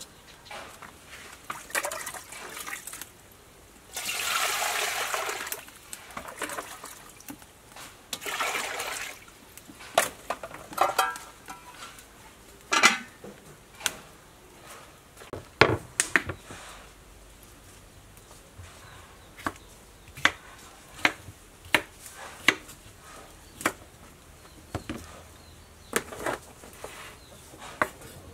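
Water poured into a metal cooking pot in two spells, followed by a few clanks of metal, then a knife slicing cucumber on a wooden cutting board, tapping about once a second.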